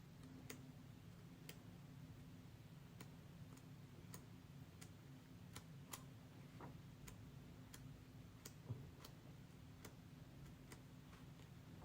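Near silence: faint, evenly spaced ticks, a little more than one a second, over a low steady hum.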